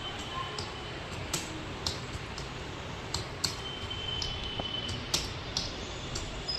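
Computer keyboard being typed on: separate key clicks at an irregular pace, about one or two a second, over a steady background hum.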